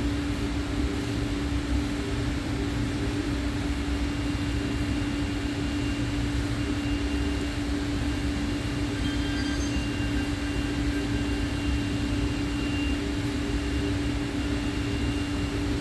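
Makita DCM501 cordless coffee maker heating water toward the boil: a steady hum with a low rumble and an even hiss, and faint thin high tones partway through.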